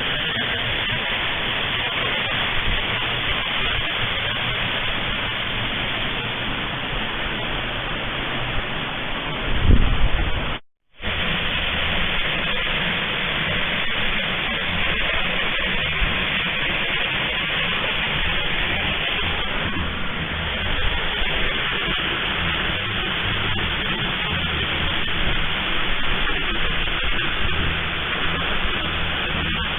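Waterfall rushing: a steady, even roar of falling water, with a brief low surge just before the sound drops out for a moment about ten seconds in.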